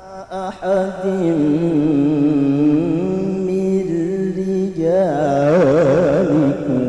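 A male qari recites the Quran in the melodic tilawah style, amplified through a microphone. A new phrase begins about half a second in and holds a long, steady note, then about five seconds in it rises into quick, wavering ornamental runs, the loudest part, before settling on a lower note.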